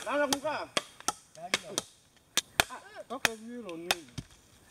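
Machete chopping through green wooden sticks: a series of sharp, irregularly spaced cuts, with voices between the strokes.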